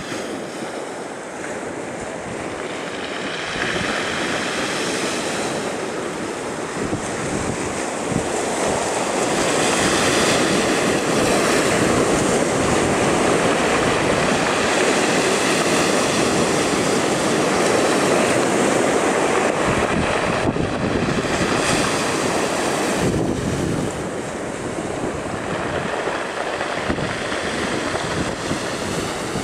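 Rough sea surf breaking against a concrete groyne and washing up a pebble beach: a continuous rushing wash of waves that swells louder through the middle of the stretch.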